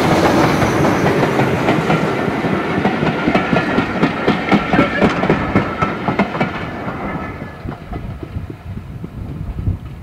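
A steam-hauled train of passenger coaches running past close by, its wheels clicking quickly and rhythmically over the rail joints. The sound fades after about seven seconds as the last coach passes and the train draws away.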